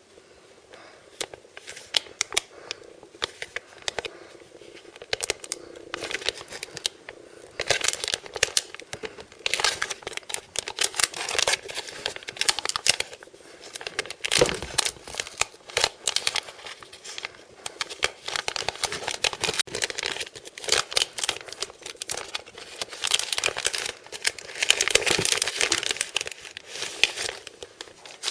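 Plastic packaging from a blind-bag toy surprise crinkling and crackling as it is handled and opened by hand, in irregular rustling bursts that come thickest in the middle and near the end.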